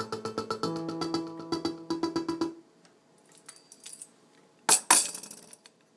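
Synthesizer music with held notes over a quick clicking pulse, which stops about two and a half seconds in. Then faint clicks and two loud, noisy knocks of handling near the end.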